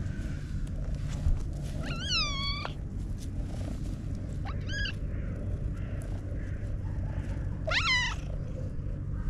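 A black cat meows three times in short, high, kitten-like calls, each rising then falling in pitch, about two seconds in, near the middle and near the end, while it purrs continuously as it is stroked.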